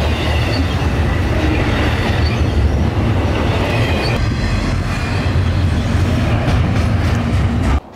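Double-stack intermodal freight train passing close by: a loud, steady rumble of steel wheels on the rails with a faint high wheel squeal over it. The sound cuts off abruptly near the end.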